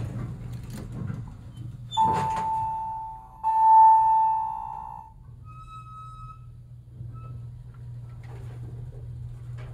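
Elevator chime sounding twice, two ringing tones about a second and a half apart, the first slightly higher: the two-stroke signal for a car going down. A steady low hum follows.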